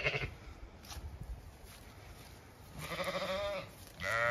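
Zwartbles sheep bleating: one wavering bleat about three seconds in, then a second, louder bleat starting just before the end.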